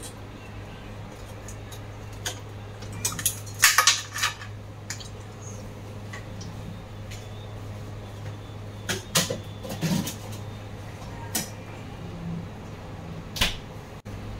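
Scattered knocks and clatter of kitchenware and a refrigerator door being handled while more ice is fetched, over a steady low hum. The busiest clatter comes about four seconds in and again around nine to ten seconds.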